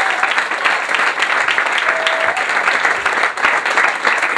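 Audience applauding steadily, a dense patter of many hands clapping at the end of a poetry reading.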